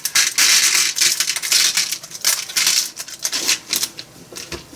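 Small metal screws clicking and rattling as they are sorted through by hand, a rapid jumble of clicks that thins out near the end.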